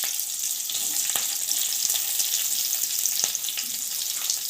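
Chopped onions sizzling as they fry in hot oil in a pan, with a few light clicks as they are stirred.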